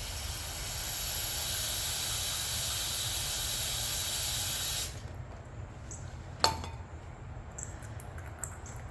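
A pressurised spray hissing steadily into the small jet holes of a small-engine carburetor to flush out old, varnished gasoline residue; it cuts off suddenly, and a sharp knock follows about a second and a half later.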